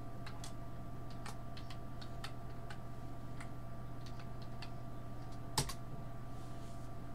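Computer keyboard keys tapped in an irregular run of light clicks, then one louder click about five and a half seconds in, over a steady low electrical hum.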